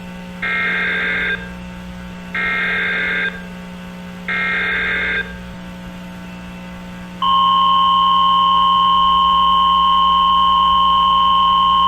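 Emergency Alert System header: three short bursts of screeching digital data tones, each about a second long and a second apart. About seven seconds in comes the steady two-tone EAS attention signal, louder than the bursts.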